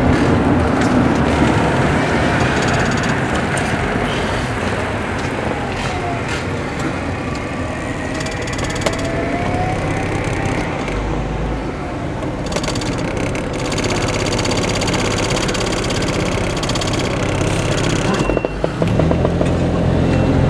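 Car interior noise while driving slowly in city traffic: a steady engine and road rumble through the cabin, with a rising drone near the end.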